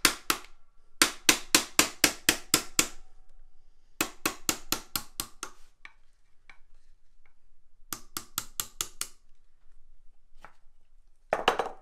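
Ball-peen hammer striking a tape-wrapped brass punch in quick runs of light taps, about five a second, drifting the Winchester 94's rear sight sideways out of its barrel dovetail. Several runs with short pauses between them, and a few fainter taps in the gaps.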